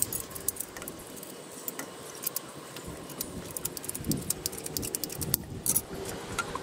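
Scattered light clicks and clinks of PVC pipe, plastic fittings and hand tools being picked up, set down and fitted, with a short louder scrape a little past halfway.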